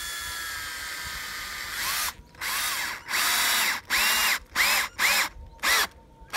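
Power drill working into a wooden pole. It runs steadily for about two seconds, then in about six short trigger pulses, each spinning up and back down in pitch, the pulses getting shorter toward the end.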